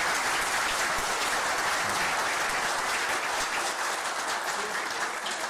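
Audience applauding, a dense clatter of many hands clapping that holds steady and thins slightly near the end.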